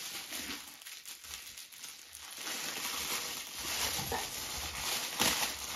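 Plastic wrapping crinkling and rustling as a plush toy is pulled out of it, getting louder about two and a half seconds in.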